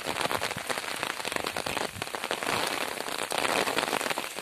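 Rain falling on shallow floodwater: a dense, even hiss of many small drops, a little louder for a second or so past the middle.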